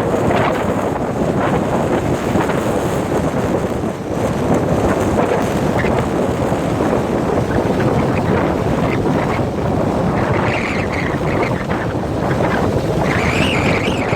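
Strong gusting wind buffeting the microphone: a loud, steady rushing that swells and dips with the gusts.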